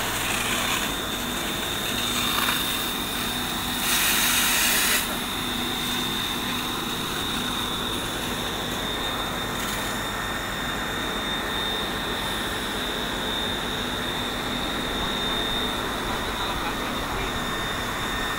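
Fire hose hand-control branch throwing a powerful water jet: a steady rushing hiss with a thin high whine running through it, and a second of louder rushing about four seconds in.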